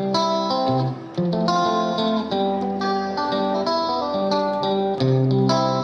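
Background music: an instrumental guitar tune of held notes changing every half second or so.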